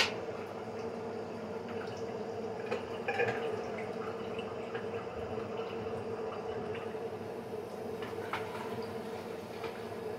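Kitchen work over a steady hum: a sharp clack of cookware right at the start, then a few light clinks of dishes and utensils about three seconds in and again near eight seconds.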